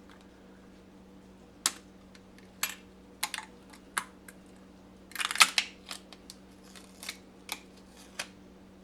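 Small metal transmission parts being handled on a workbench: a series of sharp clicks and clinks, irregularly spaced, with a louder clatter about five and a half seconds in.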